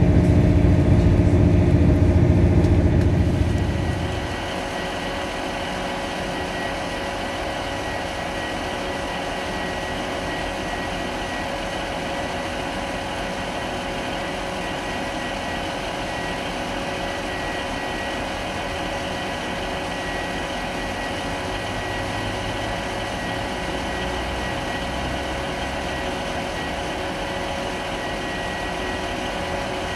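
Low running rumble of a train heard from on board, which stops abruptly about four seconds in. It gives way to a diesel multiple unit idling at a platform: a steady engine hum with a thin, high whine held over it.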